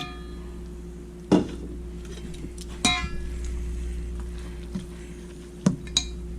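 Kitchen utensils knocking and clinking against cookware, about five sharp hits, two of them ringing briefly, over a low steady hum.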